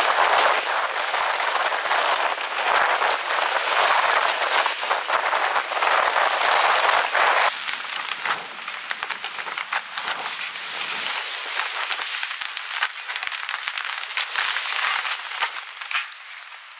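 Monsoon rain falling: a dense, steady hiss full of separate drop hits. It fades out over the last few seconds.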